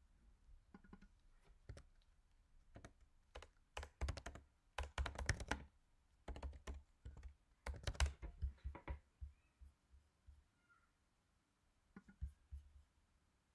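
Typing on a computer keyboard: a run of key clicks, coming thick and fast between about four and nine seconds in and sparse around that.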